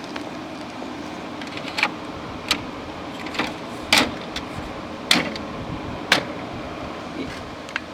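Sharp plastic clicks and knocks from a window air conditioner's air filter being pushed back into place behind the front grille, about six over several seconds, over a steady hum.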